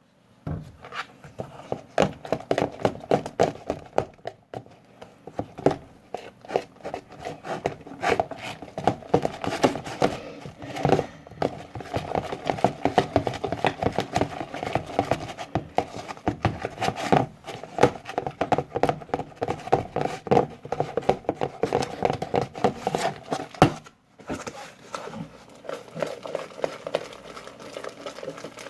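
Homemade slime mixture being mixed in a bowl right after water is added: a dense, irregular run of sticky clicks, squelches and scrapes, pausing briefly about 24 seconds in.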